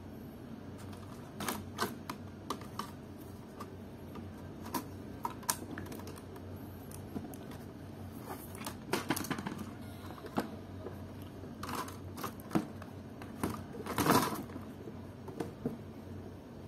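Plastic clicks from a Samsung NP300E4X laptop keyboard as it is pressed down by hand to seat it in the case, keys clicking under the fingers. The clicks come irregularly, with thicker clusters about nine seconds in and near fourteen seconds.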